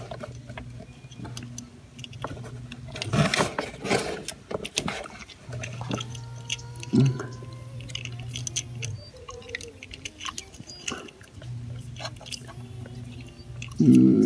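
Scattered small clicks and metallic taps of hand work on a scooter's throttle cable and carburetor linkage, as the cable end is seated and its nut put on. The clicks are busiest a few seconds in. A low steady hum comes and goes underneath.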